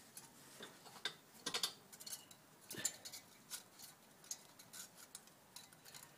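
Faint, irregular small metallic clicks and taps of hand-working engine parts: the head gasket being eased off the cylinder head studs.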